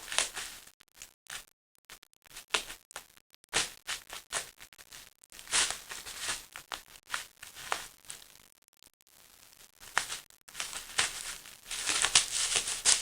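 Paper napkin-bag lure and bubble wrap crinkling and rustling in irregular bursts as a cat pounces and paws at them, busiest near the end.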